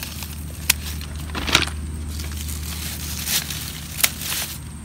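Garden shears snipping through purple coneflower stems: a few short, sharp snips spaced a second or more apart, with leaves and stems rustling as they are handled.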